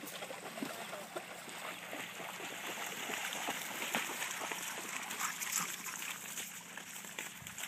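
Dogs splashing through shallow pond water, a busy patter of many quick splashes from running paws, heaviest in the middle.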